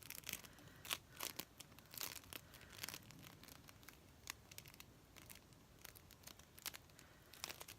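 Floam, a sticky modelling compound packed with tiny foam beads, being squeezed and pulled apart by hand: faint, irregular crackling and sticky popping.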